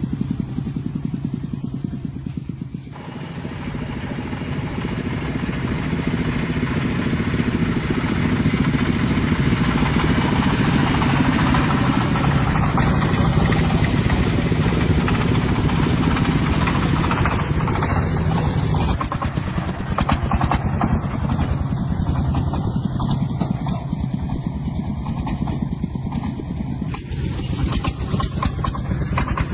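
An engine running steadily, dipping briefly about three seconds in and then growing louder over the next few seconds before holding steady.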